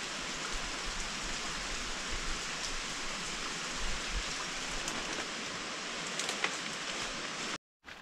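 Steady hiss of a waterfall, its water falling and spattering on rock, with a few faint ticks of drips; it cuts off abruptly near the end.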